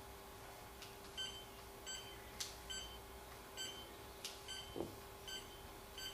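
Fixed-line phone keypad beeping as number keys are pressed to dial: about six short, high beeps, roughly one a second, with faint button clicks.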